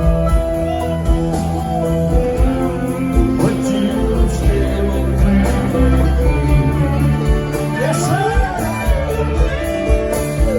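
Rock band playing live: a singer over guitars, with bass and drums keeping a steady beat.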